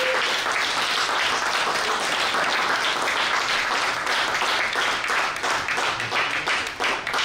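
An audience applauding: many people clapping together in a dense, steady round of applause.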